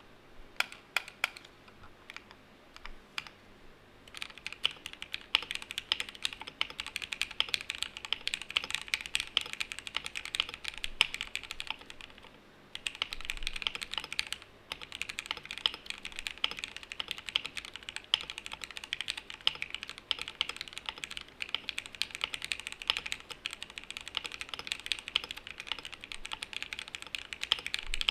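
Typing on a QK65 mechanical keyboard with stock Gateron Oil King linear switches, an aluminium plate, gasket mounting, DCS ABS keycaps and no foam dampening. A handful of separate keystrokes for about four seconds give way to fast, continuous typing, with a brief pause about halfway through.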